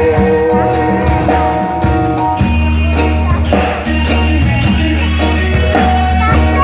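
Live band playing amplified rock: electric guitars over a bass guitar and a drum kit with cymbals.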